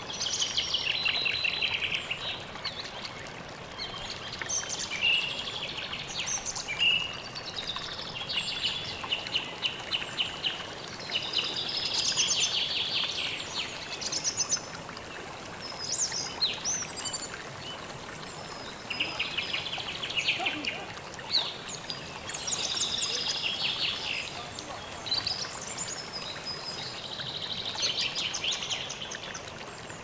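Songbirds singing and chirping, with many short calls and fast trills, over the steady rush of a waterfall.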